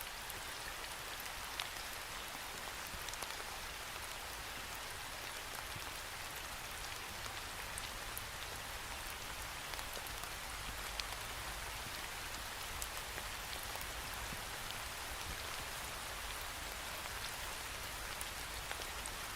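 Steady rain pattering against a window pane, an even hiss with many small drop ticks.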